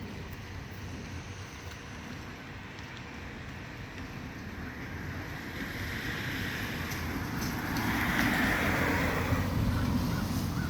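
A vehicle going by, its tyre hiss swelling about two-thirds of the way through over a steady low rumble of traffic and wind.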